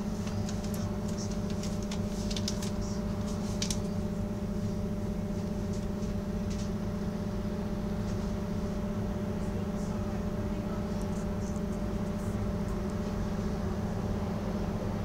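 Bus engine idling, heard from inside the upper deck as a steady low hum with a constant drone, while the bus waits at a red light. A few faint high clicks or rattles come in the first few seconds.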